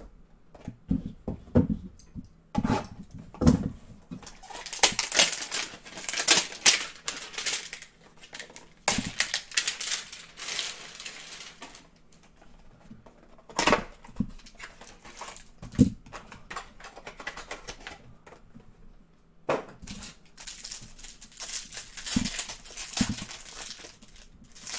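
A cardboard trading-card hanger box being handled and opened, with scattered clicks and knocks, then the plastic wrapper around the stack of cards crinkling and tearing in several spells.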